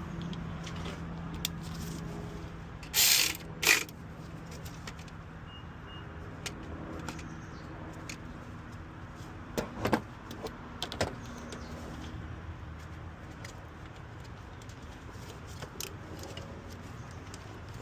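Hand tools and metal parts clinking and knocking during reassembly under the hood, with two loud short bursts about three seconds in and a few sharper knocks near the middle.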